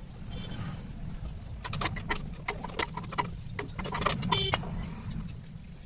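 Metal tools clicking and knocking against a motorcycle's rear wheel and axle fittings while the wheel is being taken off, with a quick run of rapid clicks about four seconds in.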